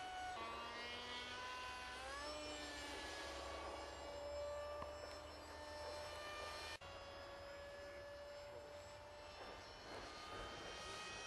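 Electric RC model jet's motor and propeller whining in flight, faint, with a pitch that rises about two seconds in and then holds steady.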